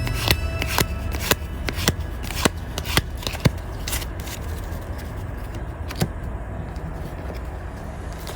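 Naruto collectible trading cards being handled and flipped through, giving a run of sharp, irregular clicks and taps that thin out in the second half, over a steady low hum.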